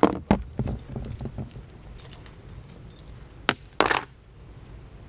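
A quick series of sharp clicks and knocks of hard equipment being handled, then a single sharp click about three and a half seconds in, followed at once by a short rasping scrape; no saw running.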